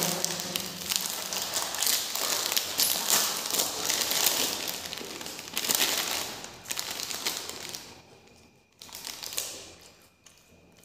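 Small plastic Kurkure snack packet crinkling and rustling as it is handled and opened, a dense crackly rustle that dies away about eight seconds in and then returns briefly.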